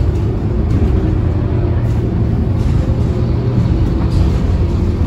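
Scania K230UB city bus heard from inside the passenger cabin while under way: the rear-mounted five-cylinder diesel runs with a steady low drone, over road noise and a few faint interior rattles.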